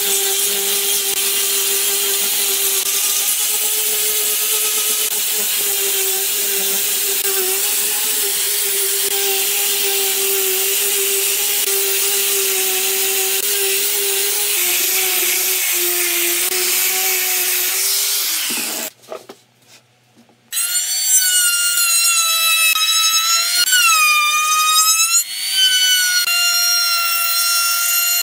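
Angle grinder with a sanding disc running steadily against a pine board: a steady motor whine over sanding hiss, which stops suddenly about two-thirds of the way through. After a brief pause, a handheld trim router runs with a higher-pitched whine that dips a couple of times as it cuts along the board's edge.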